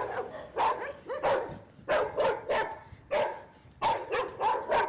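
Dogs barking repeatedly, about one or two barks every second, often in quick pairs.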